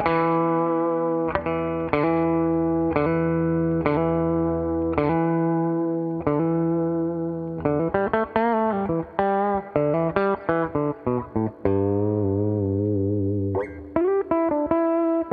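Epiphone ES-339 semi-hollow electric guitar played through an amplifier. Chords are struck about once a second and left to ring, then it moves to quicker picked notes, a held chord, and more picking near the end.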